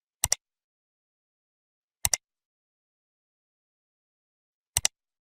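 Three sharp double clicks, a couple of seconds apart, with dead silence between them.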